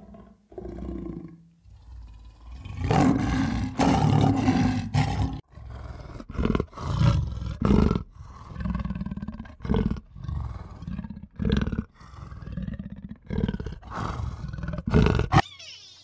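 A big cat roaring and growling: one long, loud call about three seconds in, followed by a string of shorter calls with pauses between them that stop shortly before the end.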